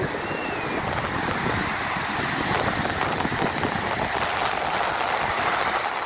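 Shore-break surf: whitewater rushing and washing up the sand in a steady wash of noise, with some wind on the microphone.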